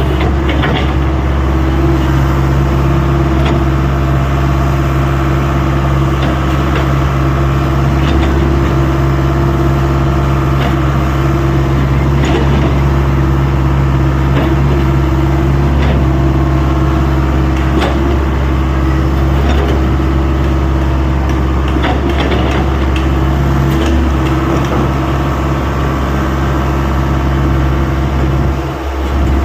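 Excavator's diesel engine running steadily, with scattered knocks and clanks over it. The level drops just before the end.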